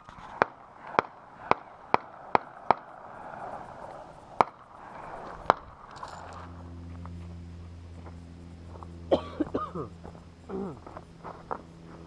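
Gunshots: a string of about nine sharp cracks at uneven spacing over the first half. A steady low hum follows.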